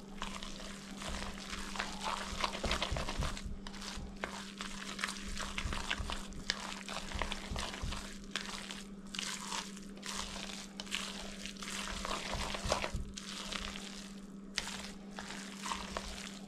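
A utensil stirring and scraping a thick cheesy rice mixture in a bowl: irregular wet scrapes and squishes, over a steady low hum.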